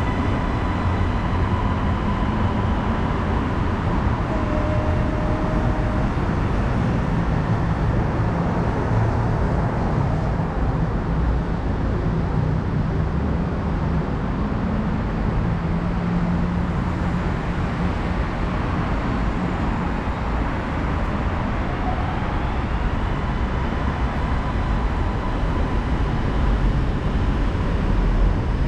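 Steady urban traffic rumble around an elevated skytrain station, with faint high whines coming and going.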